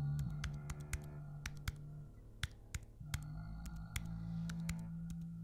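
Irregular keystrokes clicking on a laptop keyboard, over a low, steady music drone.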